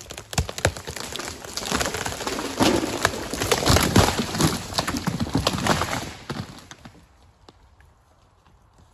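Irregular knocking and clattering, thickening into a loud stretch of crackling knocks in the middle and dying away about seven seconds in.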